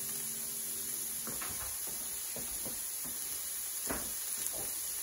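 Diced onion, carrot and celery sautéing in oil in a stainless steel skillet over high heat: a steady sizzle with scattered small pops and crackles.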